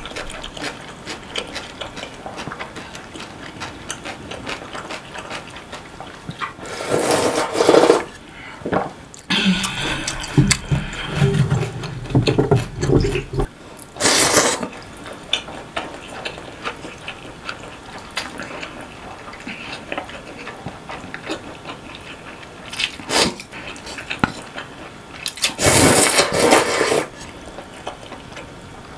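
Close-miked eating of naengmyeon, Korean cold noodles in broth. A few loud slurps of noodles and broth, about a quarter of the way in, halfway and near the end, with quieter chewing and swallowing between.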